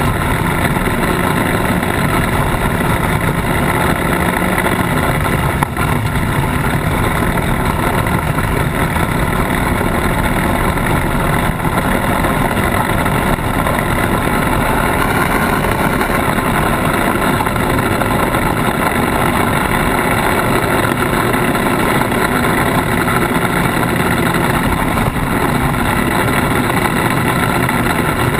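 Polaris RZR side-by-side's engine running steadily as it drives over a dirt and gravel track, with tyre and gravel noise close to the bumper-mounted microphone. One sharp knock about six seconds in.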